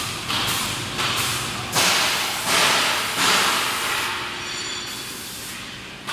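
Compressed-air tool firing in a series of sharp hissing bursts, roughly one every 0.7 seconds, each ringing out in the large hall. The bursts stop about three and a half seconds in.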